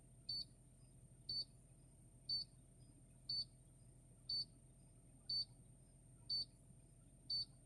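A short, high electronic beep repeating steadily about once a second, eight times, over a faint steady hum.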